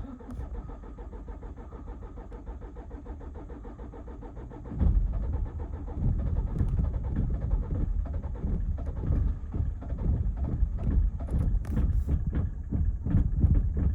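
Citroën C5 common-rail diesel engine cranking on the starter for about five seconds on a cold first start, then catching and running rough with uneven, irregular firing. The owner leans towards a failing low-pressure fuel pump as the cause.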